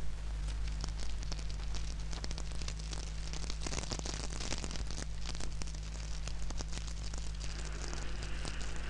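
Wood fire crackling and popping in a fireplace, with many irregular sharp snaps, over a steady low hum.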